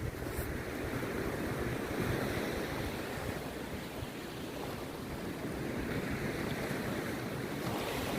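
Rough sea surf breaking and washing ashore in a continuous rush that swells and eases over a few seconds, with wind buffeting the microphone underneath.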